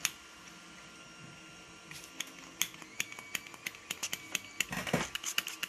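Small, sharp clicks and taps of carburetor parts being handled and fitted back together by hand: one tap at the start, then after a pause an irregular run of clicks that comes faster toward the end.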